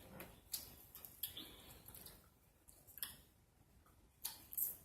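Faint eating sounds at a table: a handful of short, sharp clicks and smacks at uneven intervals, two close together near the end.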